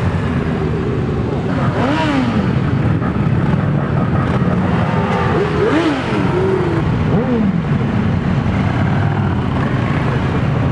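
A column of motorcycles riding past at low speed, many engines running together. Individual bikes rev and pass close by several times, each engine note rising and then falling.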